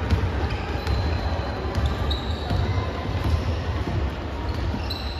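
Basketball game play: a ball bouncing on the court among scattered sharp knocks, with short high squeaks now and then.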